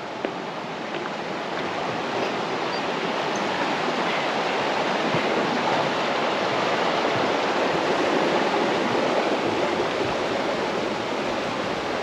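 Running water of a stream: a steady rush that gradually grows louder and eases off slightly near the end.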